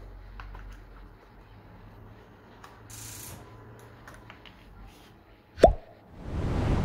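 Faint clicks and scrapes of plastic as the white shell of a FIMI X8 SE drone battery is pried apart by hand. Near the end comes a loud pop that falls in pitch, then a swelling whoosh: an edited-in sound effect.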